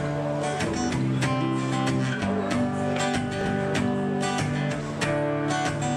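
Acoustic guitar strummed in a steady rhythm, playing an instrumental introduction of chords with held bass notes.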